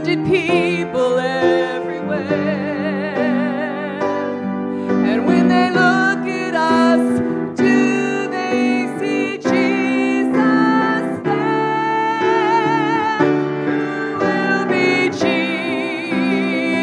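A woman sings a slow song with vibrato, accompanying herself on a grand piano.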